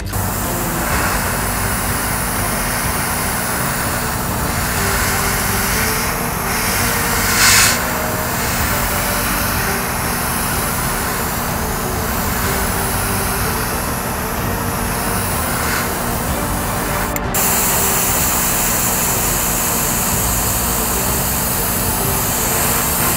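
Airbrush spraying paint over the steady hum of a spray booth's extractor fan, with a brief louder hiss of air about seven and a half seconds in. The noise steps up slightly about two-thirds of the way through.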